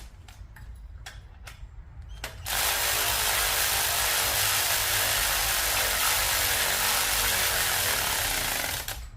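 A cordless power tool driving a 10 mm socket on a header bolt. A few light clicks come first, then the tool runs steadily for about six seconds and stops. Its battery is running low.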